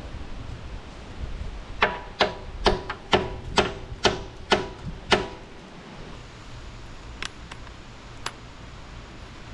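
A hammer striking metal: about eight hard, ringing blows in quick succession, roughly two a second, then a few light clicks.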